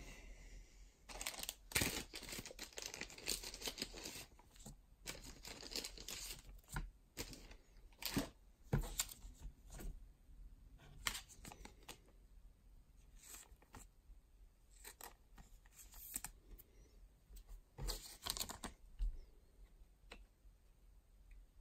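Baseball cards being slid into thin plastic card sleeves and holders: irregular rustling, crinkling and scraping of the plastic, with small clicks and taps. It is busiest over the first few seconds and turns sparse after that.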